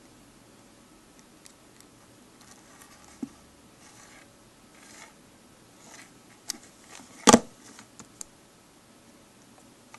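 Hands handling an iPhone in a plastic case and plugging a 30-pin dock cable into it: light rubbing and scattered small clicks, with one sharp knock about seven seconds in.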